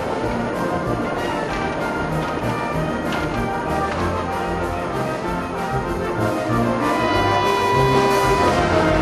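Orchestral background music led by brass, in long held notes, swelling somewhat louder about seven seconds in.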